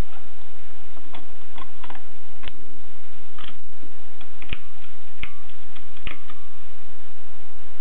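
Mignon index typewriter being typed on: about a dozen sharp mechanical clicks at an uneven, unhurried pace, over a steady hiss.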